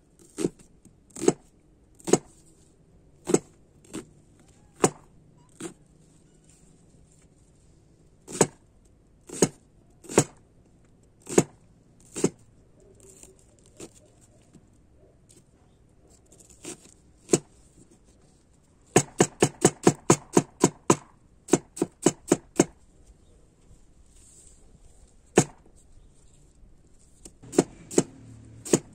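Cleaver chopping red onion on a wooden cutting board: single knocks of the blade on the board about a second apart, then a quick run of rapid chops about two-thirds through, then a few more single strikes.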